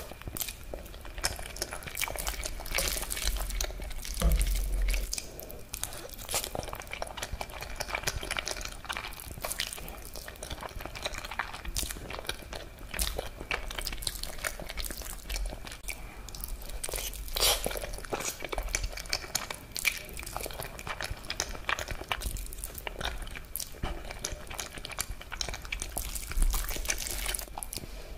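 Close-miked eating of creamy alfredo spaghetti: wet chewing, slurping of sauce-coated noodles and lip smacks, a steady run of small sticky clicks, with a fork working through the pasta.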